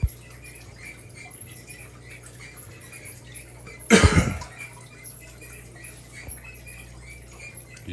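Steady low hum and soft water patter of running aquarium equipment. One brief loud noise comes about four seconds in.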